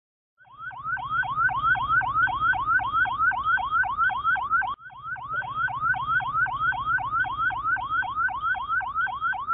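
Ambulance-style electronic siren in a fast yelp: a rising sweep repeated about four times a second, over a steady low hum. It breaks off for an instant about halfway through, then carries on.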